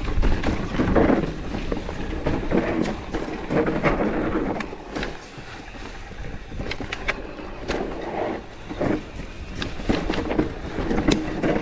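Santa Cruz Megatower mountain bike riding fast down a dry, slippery dirt trail: continuous tyre noise over the loose ground, with many sharp rattles and knocks from the bike over bumps.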